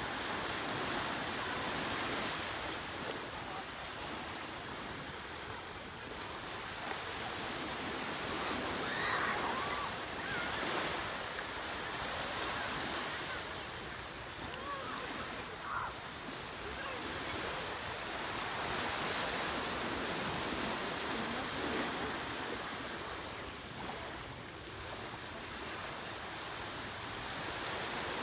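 Ocean surf breaking and washing up a beach: a steady rush that swells and eases every few seconds.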